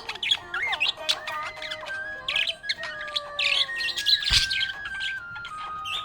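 Budgerigars chirping and warbling, a rapid run of short, high chirps over held whistled tones that step in pitch, with one sharp click about two thirds of the way through.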